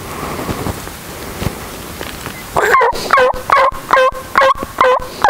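A series of seven turkey yelps starting about two and a half seconds in, about two a second. Each note drops sharply from high to low and breaks off short.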